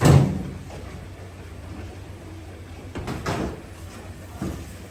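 A car door slamming shut, a heavy thud that dies away within about half a second, followed by fainter knocks about three and four and a half seconds in.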